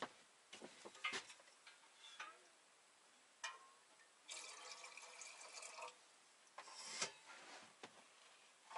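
Water poured into a container for about a second and a half, among scattered clicks and knocks of pots and containers being handled.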